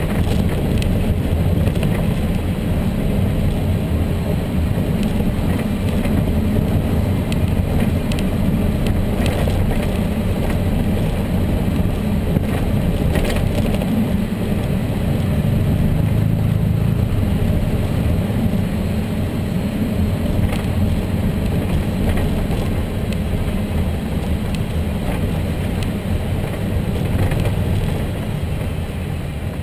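Volkswagen Tiguan running, a steady low rumble with scattered sharp clicks and knocks, the noise the owner puts down to a worn mount (coxim). The sound fades near the end.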